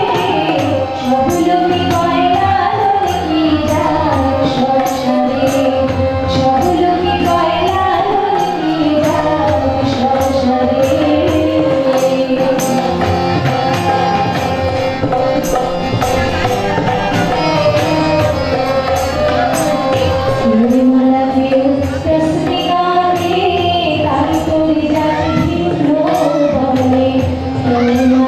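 A woman singing a slow melodic song while playing a harmonium, which holds sustained chords under her voice, with a steady light percussion beat.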